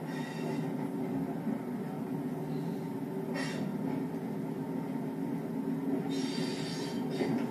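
Class 121 diesel railcar heard from its cab, its underfloor diesel engines and wheels making a steady low running drone as it moves along the track. Brief high wheel squeals come about halfway through and again near the end as it runs through pointwork.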